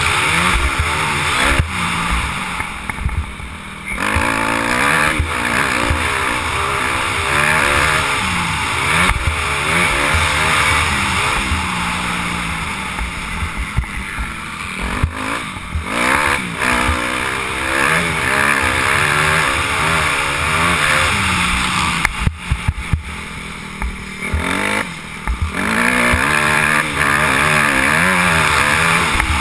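Dirt bike engine revving hard and dropping back again and again as the rider works the throttle and gears, heard through a helmet camera with rushing noise over it. The throttle is shut off briefly about three seconds in and again a little past twenty seconds.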